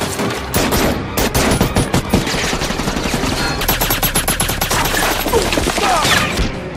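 Heavy gunfire from a movie battle scene: many rapid shots in quick succession, overlapping into continuous volleys.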